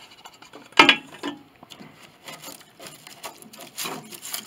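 Oak shavings and chips rustling and clattering as they are scooped out of a piano case by hand, with one sharp wooden knock about a second in.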